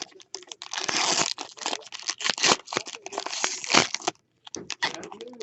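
Plastic wrapping crinkling and tearing as a sealed box of trading cards is opened, then a few light rustles and clicks near the end.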